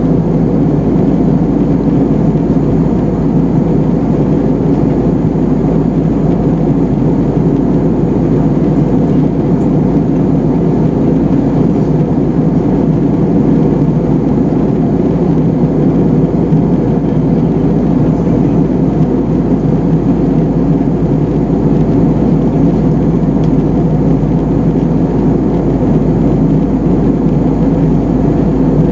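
Steady cabin noise of a jet airliner in flight: an even roar of engines and airflow heard through the fuselage at a window seat.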